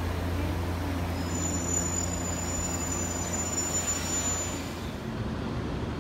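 JR 115-series electric train pulling away from the platform with a steady low running hum. For a few seconds in the middle a thin high steady whine sounds over it.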